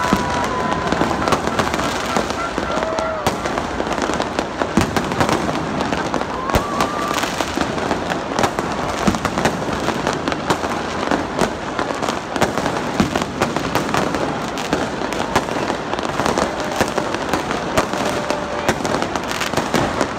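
Fireworks going off nonstop overhead: a dense run of bangs and crackles, one on top of another, over the voices of a large crowd. A few short held high tones sound near the start, about a third of the way in, and near the end.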